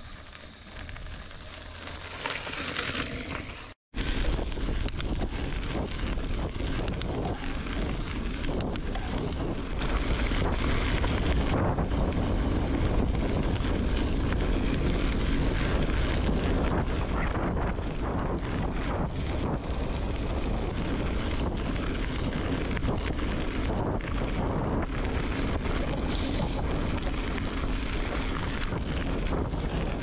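Wind rushing over the microphone of a camera on a gravel bike's handlebars, with the rumble of Goodyear Connector 50 mm tyres rolling over a gravel road. For the first few seconds it is quieter and builds as the rider comes closer along the gravel road, then, after a brief drop-out about four seconds in, the louder riding noise goes on steadily.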